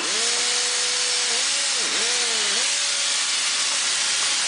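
Steady loud hiss with a humming tone that dips sharply in pitch several times and fades out about three seconds in. It is taken to be the power unit that drives the HYTORC hydraulic torque wrench on the flange bolts.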